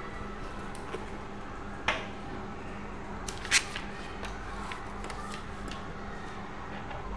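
Room tone of a quiet computer room with a steady low hum, broken by a few sharp clicks and one louder, brief rustle or crackle about three and a half seconds in.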